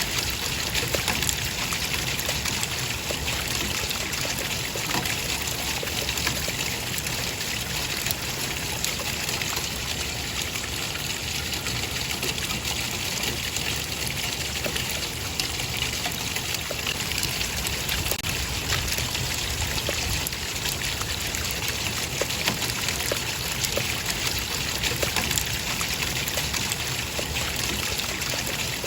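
Running water trickling and splashing steadily, a continuous rush dotted with small drips and splashes.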